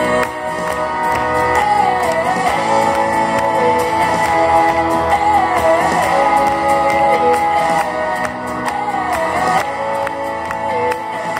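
Folk dance music accompanying Basque traditional dancers: a held melody line that wavers and dips, over a steady beat.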